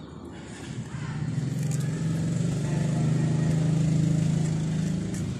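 Low, steady engine hum of a motor vehicle, growing louder from about a second in and easing off slightly near the end.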